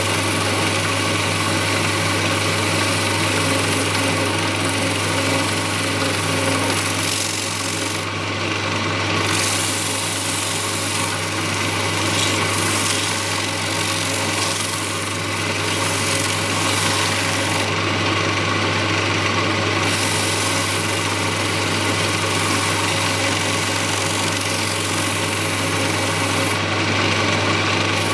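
Electric wood lathe running with a steady low hum, while oil-soaked paper is pressed against the spinning bird-cherry bowl, adding a rubbing hiss as oil is wiped into the wood and leftover mastic is wiped off.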